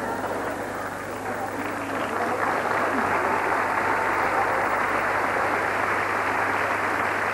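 Theatre audience applauding after a joke, the applause swelling about two seconds in and holding strong.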